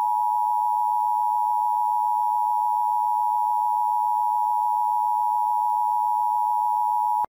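Emergency Alert System attention tone: one steady, unchanging electronic tone just under 1 kHz, cutting off abruptly just before the end.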